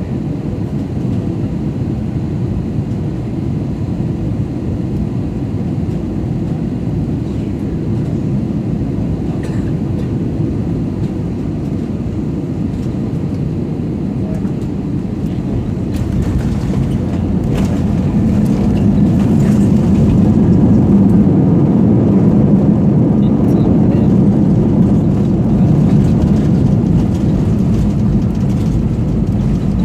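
Steady low rumble of a jet airliner heard from inside the passenger cabin during landing, growing louder a little past halfway and staying up, with faint rattles as it rises.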